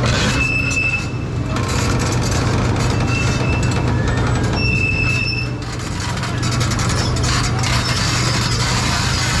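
Heavy construction machinery's diesel engines running steadily under load, with short high-pitched squeals breaking in about three times.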